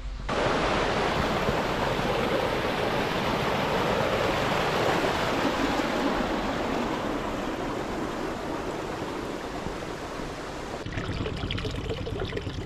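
Rushing stream or river water: a loud, steady, even rush. Near the end it cuts off to a quieter background with scattered light clicks.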